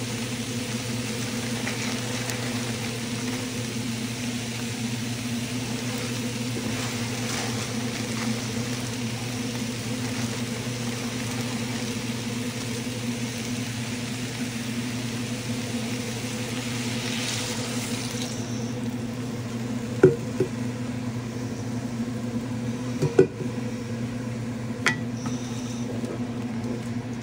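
Meat and rice sizzling in a hot cast-iron Dutch oven over a steady low hum. The sizzle quiets about two-thirds of the way through as the water goes in, and then a wooden spoon knocks against the pot a few times.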